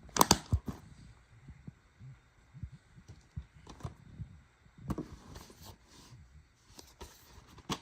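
Handling noise from plastic DVD cases being moved and opened: a few clicks and knocks, the loudest just after the start and another cluster about five seconds in.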